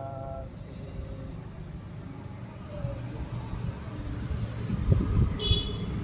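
Steady low rumble of distant traffic, with a short high bird chirp about five and a half seconds in and a brief mid-pitched tone right at the start.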